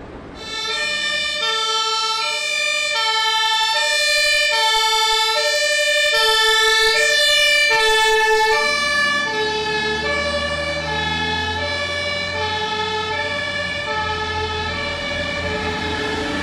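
Two-tone siren (German Martinshorn) of an Iveco Magirus DLK 23/12 turntable ladder fire truck, switched on about half a second in, alternating between its two notes with each note held about half a second. After about nine seconds, as the truck passes, the notes drop in pitch and the deep rumble of its diesel engine comes in underneath.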